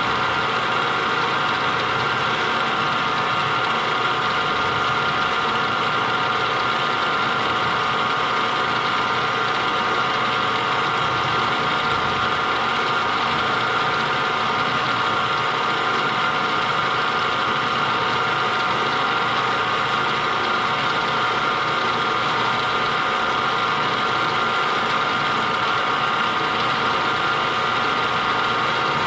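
Machine tool spindle running steadily at about 450 RPM while its cutter works through a keyway slot in a bushing, fed by hand; a constant mechanical hum made of several steady tones.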